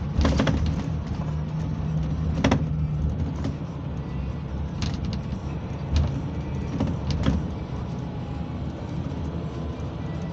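Cabin noise inside a Mercedes-Benz Intouro coach on the move: steady engine hum and road noise, with several sharp knocks and rattles from the body and fittings, the loudest about two and a half and six seconds in.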